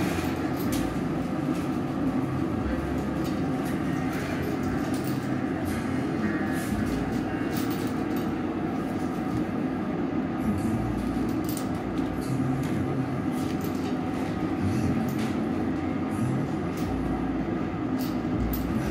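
Gas-fired glory hole running with a steady, even rushing noise from its burner and blower while glass is reheated in it.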